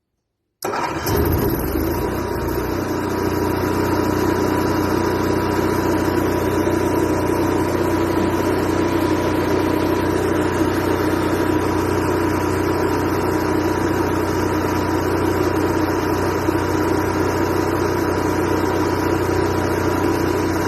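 RV onboard generator engine starting up and then running steadily, with an even hum, on a freshly replaced carburetor. It comes in abruptly about half a second in, the low end settling over the first couple of seconds.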